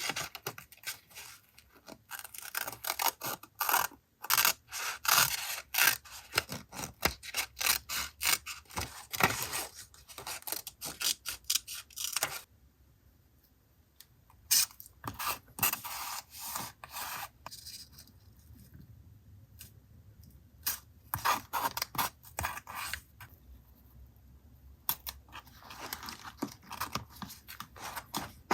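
Paper and stationery being handled for a collage journal page: quick crackling rustles, rubs and scrapes, dense at first, then a quieter stretch with a few strokes, then another busy flurry.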